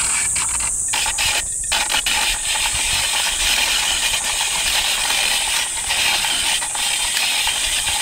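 Hand-cranked shaved-ice machine shaving a block of ice: a steady scraping hiss of the blade cutting ice, broken by small irregular crackles.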